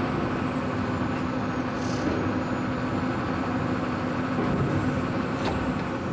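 John Deere 345G excavator running, its diesel engine and hydraulics working steadily while the controls are tried out after the pilot control hoses were re-plumbed. A steady hum over the engine noise stops about four and a half seconds in.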